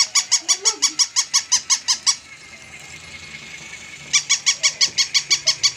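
Battery-operated plush toy dog giving rapid electronic yaps, about nine a second, in two runs of about two seconds with a pause between, over a faint steady high whine.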